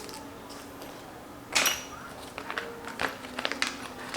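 Small unboxed accessories and paper packaging being handled: a brief rustle about one and a half seconds in, then a few light clicks and taps.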